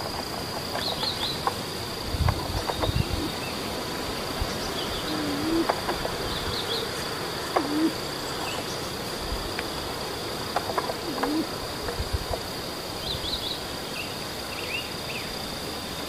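A steady, high-pitched insect drone with small clusters of faint bird chirps every few seconds. There are a few dull low thumps, the loudest about two and a half and seven and a half seconds in.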